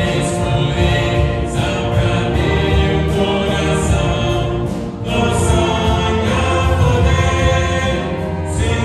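Church wind orchestra of brass and woodwinds playing a slow hymn in long held chords, with brief breaths between phrases about one and a half seconds in and again about five seconds in.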